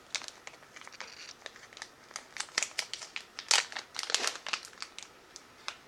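Plastic packaging of a wax melt crinkling and crackling as it is handled, in irregular bursts, loudest about three and a half seconds in.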